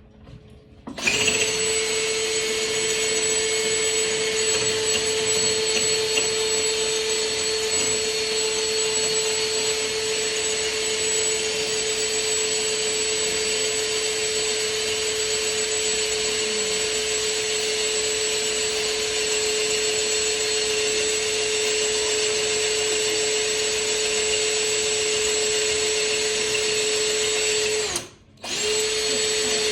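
Electric drill running steadily at a constant speed while boring into brick. It stops for a moment near the end, runs again briefly, then stops.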